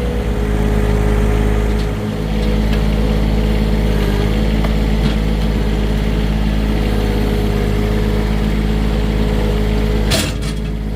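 A compact tractor's engine running steadily, with a brief clatter about ten seconds in.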